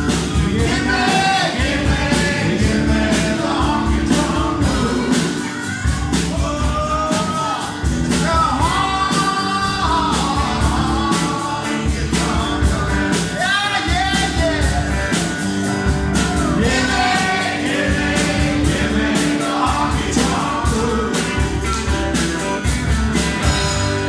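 Live country-rock band playing: lead vocals over strummed acoustic guitars, electric guitar, bass guitar and a steady drum beat.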